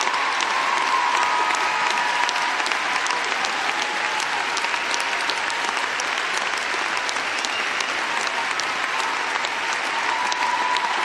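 Large crowd applauding steadily, many hands clapping at once without a break.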